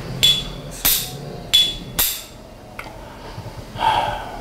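Four sharp clinks of hard tableware on a table within about two seconds, two of them with a short high ring, then a brief louder sound near the end.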